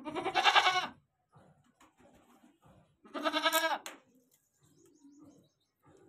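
Goat bleating twice, two loud wavering calls each just under a second long, about three seconds apart.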